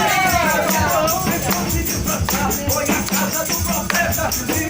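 Pentecostal worship music with hand percussion rattling in a steady beat over the band, and a voice singing a long falling line in the first second or so.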